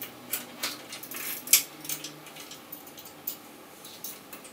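Short metallic clicks and clinks of hand tools and parts against a bicycle's crank while a pedal is being fitted, irregular, with the loudest knock about a second and a half in.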